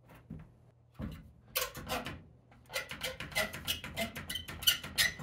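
One-handed bar clamp being fitted onto a pine slat and squeezed tight: a run of sharp ratcheting clicks, about three a second, starting about a second in.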